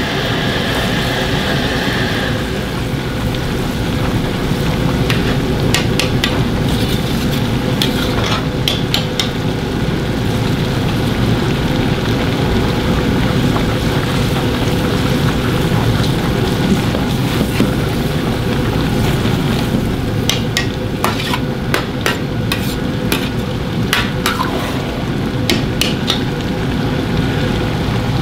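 Jjajang black bean sauce with chopped onions sizzling in a large wok over a steady low rush, a metal ladle stirring it and clinking against the wok in two spells of sharp clicks, a few seconds in and again past the middle.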